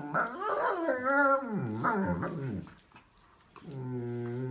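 Young German Shepherds play-fighting, growling and whining with a wavering, rising and falling pitch. After a short pause around three seconds in, one holds a steady, lower growl.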